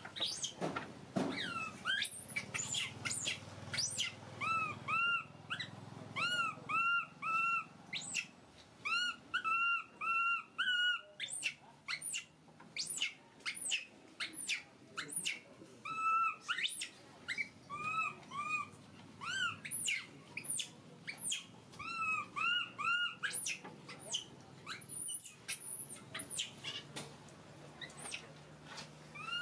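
Baby long-tailed macaque crying: a long run of short, high-pitched arching cries repeated one after another, mixed with sharper squeals that sweep very high. These are the distress calls of an infant monkey.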